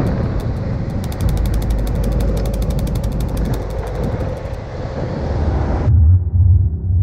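Wind rumble on the microphone with the quick, even ticking of a bike's freewheel hub coasting. The sound cuts off abruptly near the end, and a low throbbing electronic music bed takes over.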